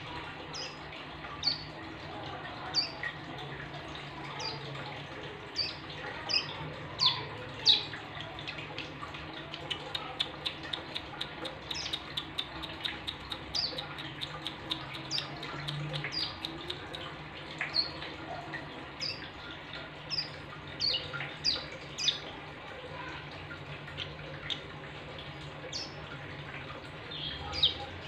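Ciblek gunung, a small prinia, calling with short sharp chirps about once a second, breaking into a rapid run of ticking notes around the middle.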